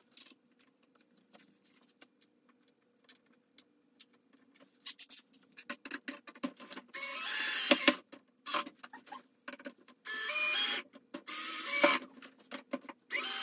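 Cordless drill/driver on a low speed and clutch setting driving screws into a plastic crate's panels, running in several short bursts of about a second each with a motor whine, starting about five seconds in. Before that, only small clicks of handling the parts.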